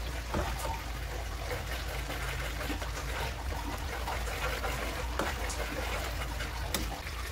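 Spice masala bubbling and sizzling in hot oil in a pan while a steel ladle stirs it, with a few short clicks of the ladle against the pan.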